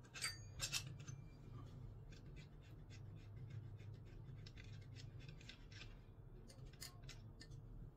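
Faint small clicks and scraping of a hand tool worked against an electric demolition hammer's housing, with two sharper clicks near the start and rapid light ticking after, over a low steady hum.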